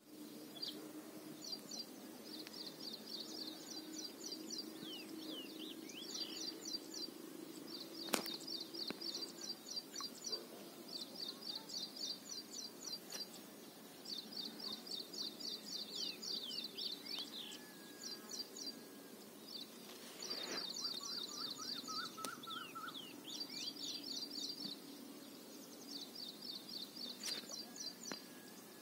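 Bird calls: rapid chirping trills of one to two seconds each, repeated over and over with short gaps, with a few falling whistles between them. A low steady hum runs beneath, and there is one sharp click about eight seconds in.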